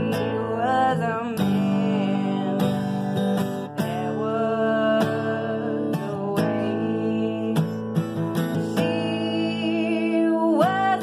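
Steel-string acoustic guitar strummed in steady chords, with a woman singing along in places: a wavering sung line about a second in and again near the end.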